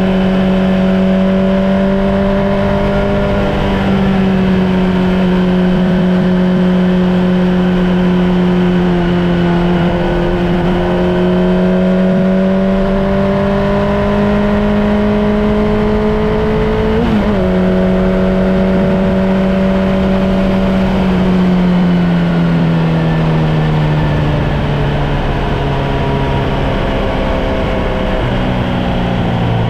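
Kawasaki Z900's inline-four engine, ECU freshly flashed, running steadily at cruising speed under road wind. About two-thirds of the way through its pitch briefly jumps up and drops back. Over the last several seconds the pitch falls in steps as the bike slows.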